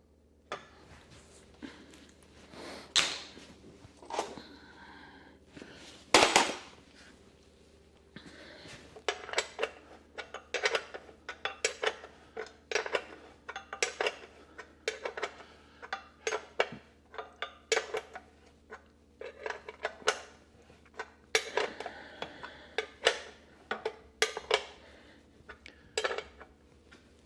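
Small metal parts and hand tools clinking and clattering as they are handled, with a couple of louder knocks early on, then a run of sharp clinks about once a second.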